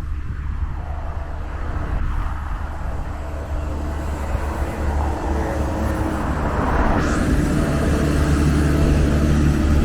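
City road traffic with a vehicle engine running close by, getting louder over the second half. A thin high whine comes in about seven seconds in.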